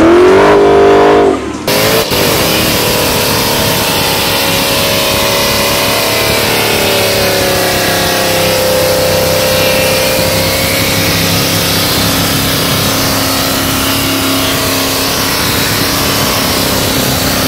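Dodge muscle car doing a burnout: the engine is held high and steady while the rear tyres spin, with a dense tyre noise over it. About two seconds in there is a cut from another burnout, where the engine is revving.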